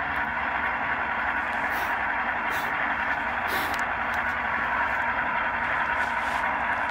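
Sound decoder of a ScaleTrains HO-scale ES44 diesel model playing through its small onboard speaker: a steady locomotive idle with short hisses of air about two, two and a half and three and a half seconds in, the brake set-and-release sound effect.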